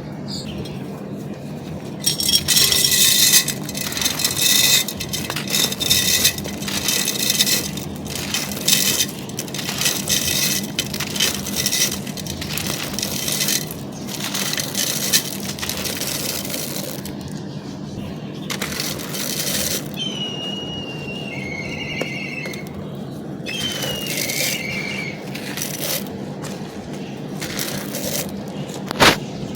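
Dry, brittle charcoal or baked clay being crumbled and crushed by hand, a dense run of irregular crunches and crackles. A couple of short, high squeaky chirps come about twenty seconds in, over a steady low hum.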